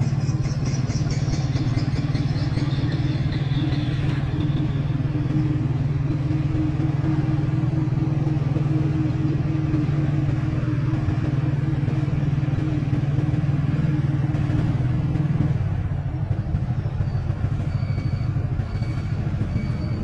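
Motorbike engine running steadily under way, with road noise. Its hum drops and turns rougher about fifteen seconds in.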